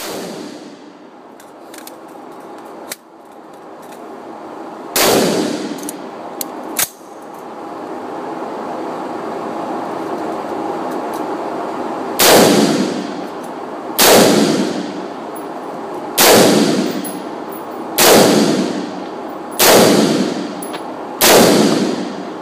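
DPMS Oracle AR-15-pattern rifle fired in single shots inside an indoor range booth, each sharp crack followed by a ringing echo. A few scattered shots come first, then from about halfway through a steady series of six shots, roughly one every two seconds.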